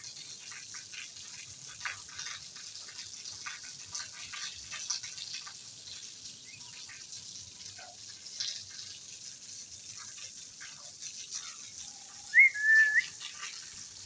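Faint steady hiss with scattered faint clicks. About twelve seconds in comes one short, loud whistle that rises, then holds level for under a second.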